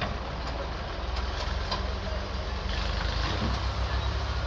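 Doosan DX-series crawler excavator's diesel engine running steadily, growing slightly louder as the machine moves closer.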